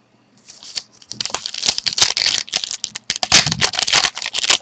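A trading-card pack wrapper being torn open and crinkled by hand. It starts about half a second in as a dense run of sharp crackles.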